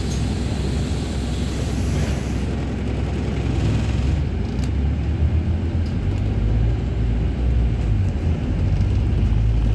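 Bus engine and road noise heard from inside the moving bus: a steady low rumble, growing a little louder about halfway through.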